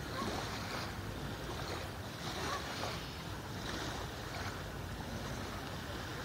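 Small lake waves lapping and washing at the shoreline, a soft rush that swells and fades about once a second, over a low rumble of wind on the microphone.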